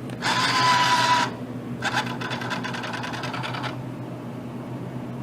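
Vending machine bill acceptor motor drawing in a folded banknote. A loud whir with a steady whine lasts about a second. After a short pause comes a quicker, rattling run of rapid clicks for almost two seconds, as the bill is pulled through and checked.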